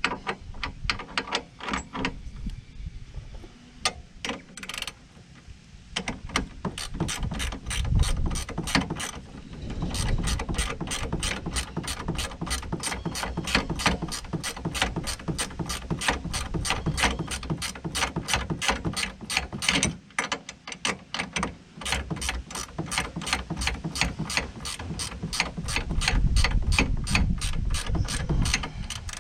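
Hand ratchet wrench clicking steadily, a few clicks a second, as a bolt on the rear hub assembly is turned. The clicks start sparse and fall into a steady run from about six seconds in.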